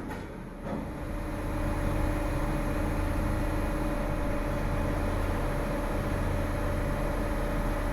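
Mobile crane's diesel engine running steadily under load while lifting a boat, its level building over the first second or two and then holding with a steady hum.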